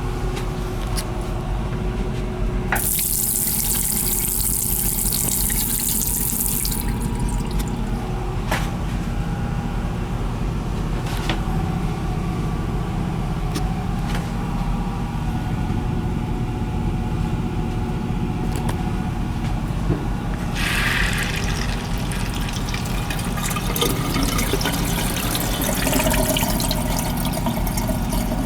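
Water running from a boat restroom's tap in stretches, rushing from about 20 seconds in to the end, over a steady low rumble. A high hiss sounds from about 3 to 7 seconds in.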